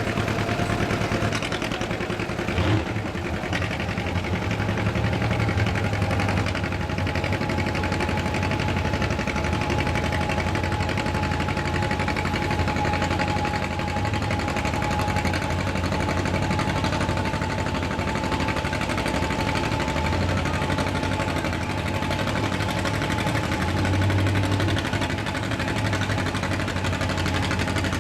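Farm tractor engine running steadily, with a thin, steady high whine over the engine note.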